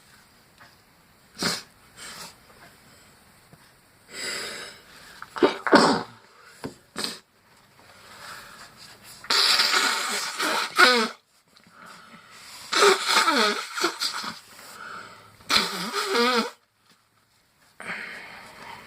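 A person sneezing repeatedly: short, sharp sneezes at first, then three longer voiced sneezes in a row later on and a smaller one near the end. A sneezing fit that the person puts down to either a cold coming on or an allergy.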